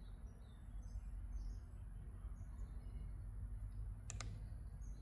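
Small birds chirping faintly over a steady low outdoor rumble, with a single sharp click about four seconds in.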